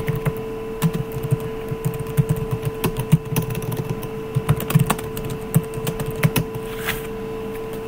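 Typing on a computer keyboard: irregular runs of short key clicks, over a steady electrical hum.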